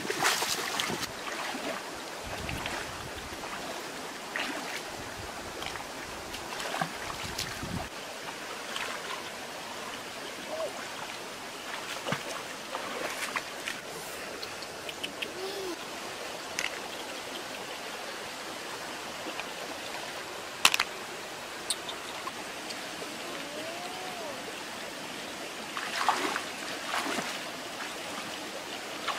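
A shallow stream running over stones, with splashing now and then as hands and feet move through the water. A single sharp knock about two-thirds of the way through.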